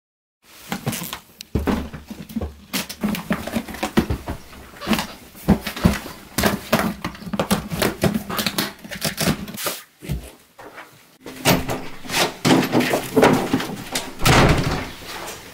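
Knocks, clicks and rustling of a suitcase being handled and shut, then a room door opening near the end.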